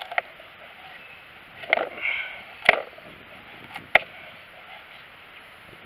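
Cold Steel Fin Bear knife shaving feather-stick curls off a damp pine stick that is held upright on a wooden board. A short scraping stroke comes about two seconds in, then sharp knocks of the blade and stick against the board, the loudest a little before three seconds in and two more near four seconds.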